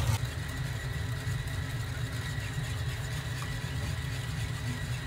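Steady low rumble of commercial kitchen equipment running, with a faint thin high whine over it.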